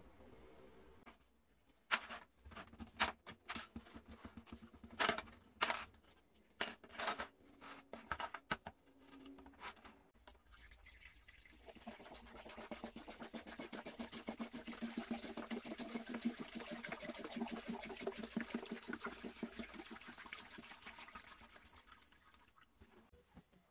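A run of sharp clicks and knocks as small metal bicycle-lamp parts are handled and set into a plastic tub. Then, about halfway through, liquid rust remover is poured steadily from a plastic jug into the tub over the parts, the pouring fading out near the end.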